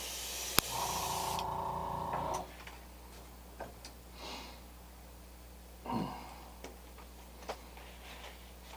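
Airbrush spraying copper paint in a steady hiss that stops about a second and a half in, with a sharp click and then a short hum of about two seconds. After that come only faint handling clicks and rustles.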